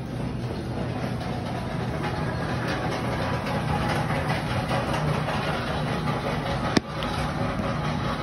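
Steady low mechanical hum with an even hiss over it, and one sharp click about seven seconds in.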